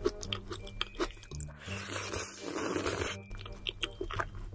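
Close-up eating sounds: chewing creamy rose tteokbokki and glass noodles, with many short wet mouth clicks and a longer hissing noise about two seconds in.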